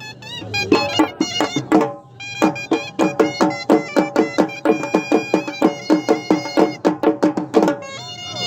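Pashtun attan dance music: a fast, driving drum beat with a reedy wind instrument playing a held melody over it. The drumming drops out briefly about two seconds in, then picks up again.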